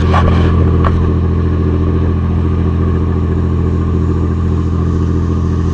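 A riverboat's engine running steadily at cruising speed, giving a low, even hum.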